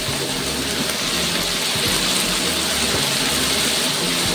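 Pork large intestine frying in a hot wok, a steady sizzling hiss as dark soy sauce is poured in over it.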